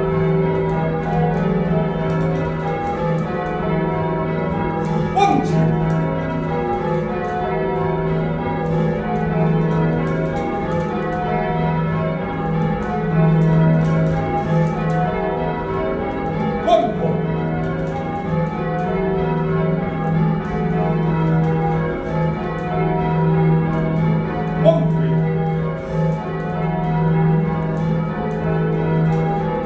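A heavy ring of six church bells, cast by John Taylor & Co in 1925 with a tenor of about 19 cwt in E-flat, rung by hand from the ringing chamber, the bells striking one after another without a break. Three short sharp sounds stand out above the bells, about 5, 17 and 25 seconds in.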